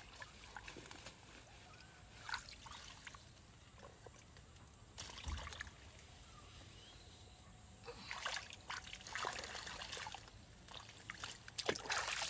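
Hands and a mesh net trap moving in shallow muddy ditch water: faint, intermittent sloshing and splashing with water trickling off, as the net is pulled in and checked for a catch. The splashes come more often in the last few seconds.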